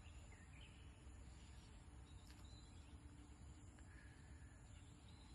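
Near silence: faint outdoor ambience with a low rumble and a couple of faint, brief bird chirps.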